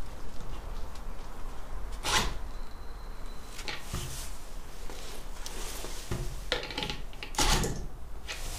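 Handling noise from a torque wrench worked on a bolt in a wooden beam: a few separate knocks and scrapes of metal against wood and glove rustle, the loudest about two seconds in and again near the end.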